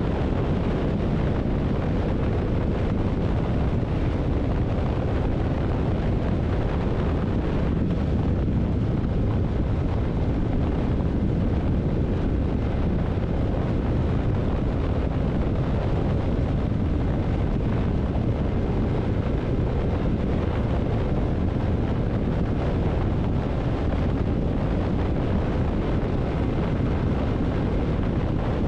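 Wind buffeting the microphone of a Yamaha MT-07 motorcycle at a steady cruise, with the bike's 689 cc parallel-twin engine running underneath at an even pace.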